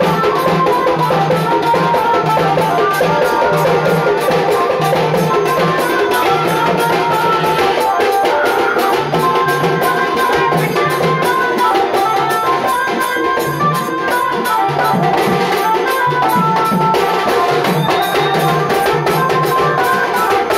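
Loud music with a steady drum beat and a repeating bass line, played through a DJ sound system.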